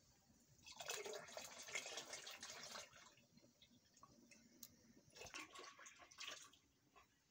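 Milky liquid being poured into a plastic bucket, splashing as it lands. It comes in two pours: a longer one about a second in and a shorter one about five seconds in.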